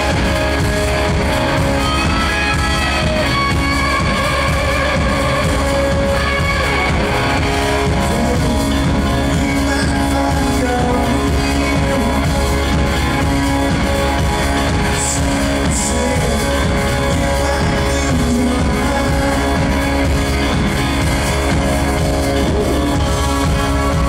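Live rock band playing, with electric guitars over drums and bass, heard from the audience and loud.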